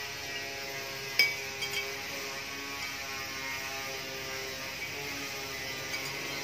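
A metal spoon clinks sharply once against a ceramic dish about a second in, followed by a few lighter taps and clicks as it stirs the sauce in the dish.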